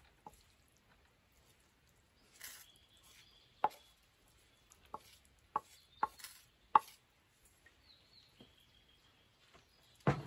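A wooden spoon knocking and scraping against a frying pan as a rice and ground-meat mixture is spooned out into a cast-iron pot: a series of sharp, separate taps, with a duller, heavier knock just before the end.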